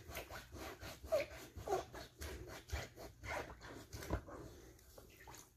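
A foot scrubber rasping the dead skin off a wet heel in quick, repeated strokes, about five a second, with a couple of brief squeaks early on.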